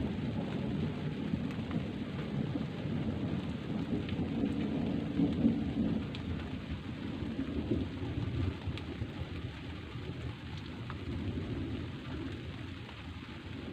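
Rain falling steadily with a long rolling rumble of thunder, loudest about five seconds in and slowly easing off, with scattered raindrop ticks.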